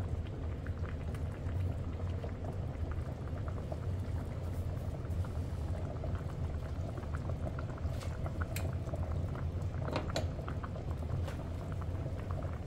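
A pot boiling on the stove, bubbling and crackling steadily over a low hum, with a few sharp clicks about two-thirds of the way in.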